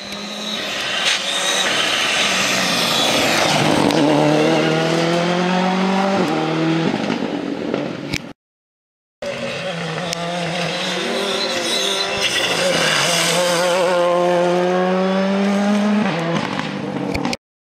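Rally cars at full throttle on a tarmac stage, one pass and then another after a short break. Each engine's pitch climbs and is broken by quick gear changes as the car accelerates past.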